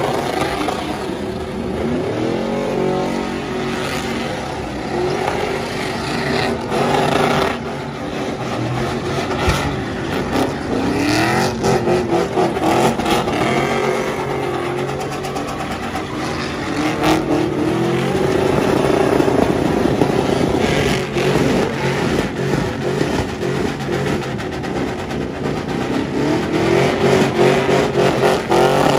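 Several pickup trucks' engines revving hard during burnouts and donuts. The engine pitch repeatedly climbs and falls over the steady hiss of spinning tyres, with occasional sharp cracks.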